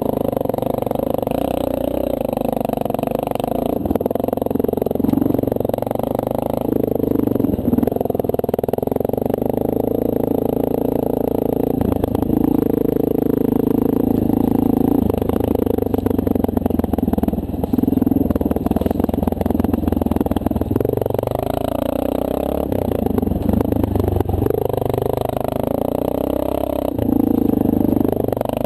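Honda CRF230L single-cylinder four-stroke dirt bike engine running under way, heard from the bike itself, its revs rising and falling several times with the throttle.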